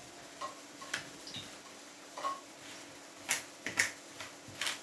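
Metal fork mashing ripe bananas in a plastic bowl: irregular light clicks and taps of the fork against the bowl, about six in all.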